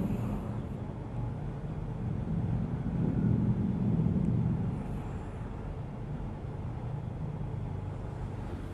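Low, steady rumble of room noise in a large mosque hall, with no voices. It swells a little a few seconds in, then settles.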